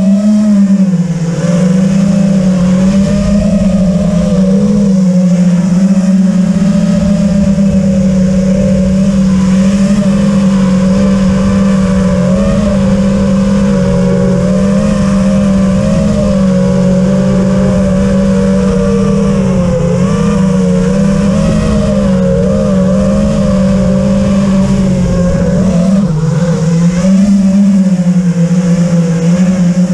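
FPV quadcopter's motors and propellers buzzing steadily, heard close up from on board. The pitch wavers up and down with the throttle, and there is a louder swell near the end.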